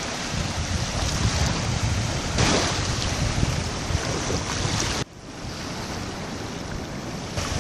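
Small waves lapping and washing over the sand in shallow lagoon water, with wind buffeting the microphone. The sound drops suddenly about five seconds in and goes on more quietly.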